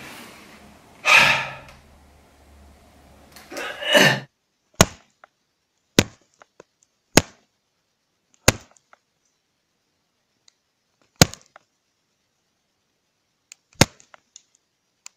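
A man's wordless angry outbursts, twice in the first four seconds, followed by about six sharp knocks spaced one to two and a half seconds apart against dead quiet.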